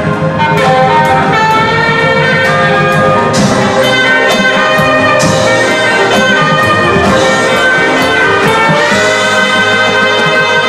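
Marching band playing: brass sustaining loud chords over drums, with cymbal crashes about three and a half, five and nine seconds in.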